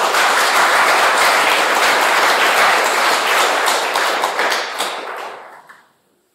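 Audience applauding, loud at first, then dying away about five to six seconds in.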